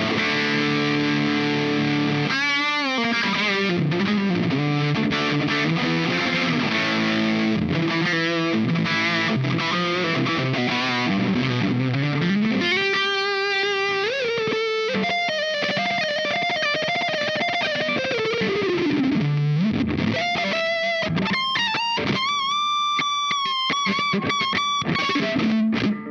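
Electric guitar played through a Dazatronyx RAD Distortion pedal, a RAT-style circuit, with the gain cranked. Distorted chords and riffs give way about halfway through to single-note lead lines with string bends and vibrato on held notes, and the playing stops abruptly at the end.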